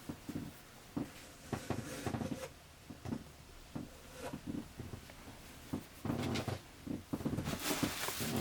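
Handling noises of unpacking: irregular clicks and knocks, with a denser stretch of rustling near the end.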